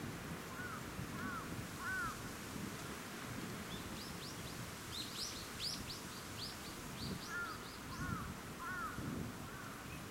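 Wild birds calling. Short arched chirps repeat in small groups, and about four seconds in a quick run of higher twittering notes joins them. A low, even outdoor background noise runs underneath.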